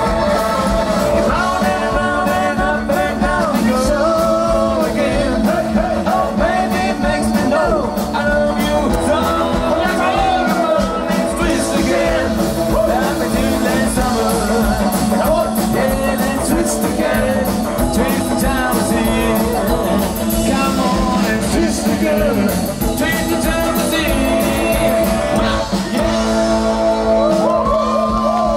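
Live rock'n'roll band playing with electric guitar, upright double bass and drum kit, with singing over it, loud and steady.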